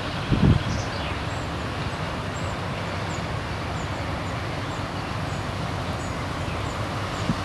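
Wind buffeting the microphone over a steady low rumble, with a couple of low thumps about half a second in. Faint high chirps repeat about twice a second.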